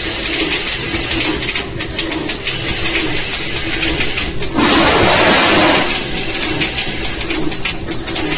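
Pillow-type flow-wrap packaging machine running as it wraps single tape rolls: a repeating low hum with light ticking. About halfway through there is a louder rushing hiss lasting just over a second.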